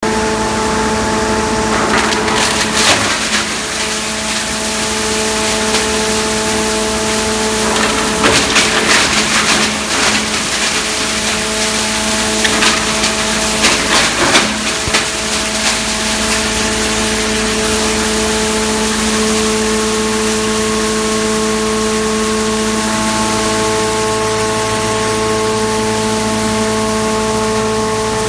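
Wood shavings machine running with a steady multi-tone hum, broken by bursts of crackling and splintering as wood is crushed inside it: about two seconds in, again around eight to ten seconds, and around thirteen to fifteen seconds.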